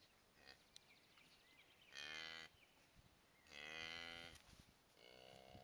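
Cow mooing three times in short calls, the last beginning near the end. This is a newly calved cow lowing to her newborn calf.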